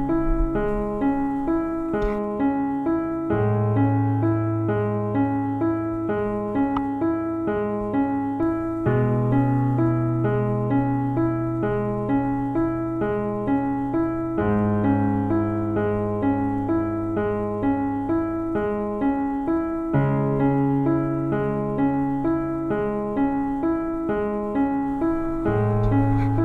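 Background music on keyboard: an even, repeating run of short notes over long held bass notes that change every five or six seconds.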